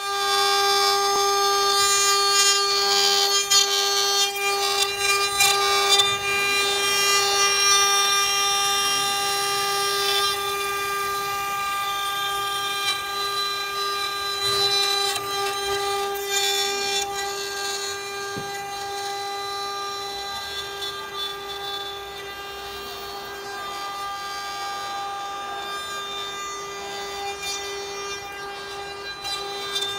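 Electric spindles of a multi-spindle CNC wood router running at high speed with a steady high whine, their bits cutting carved relief into a wooden column turned on the rotary axis. The cutting noise is heaviest for the first ten seconds or so and then eases off while the whine carries on.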